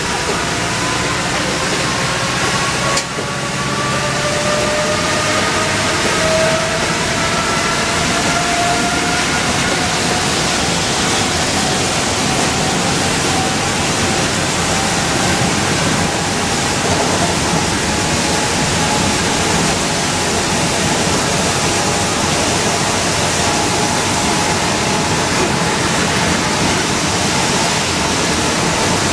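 Cabin noise of an Orion V transit bus gathering speed on a wet highway: a steady rush of tyres on wet road with a drivetrain whine rising slowly in pitch. There is a brief drop about three seconds in.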